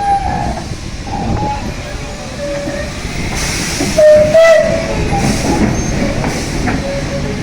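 Locomotive class 12E no. 3925 running on the track, with a steady rumble and short high squealing tones that come and go at changing pitch. The loudest is a brief tone about four seconds in.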